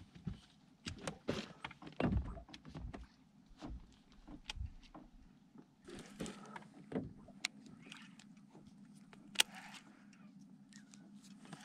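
Scattered knocks and clunks of people and gear moving about in an aluminium fishing boat, followed about halfway through by a faint steady hum.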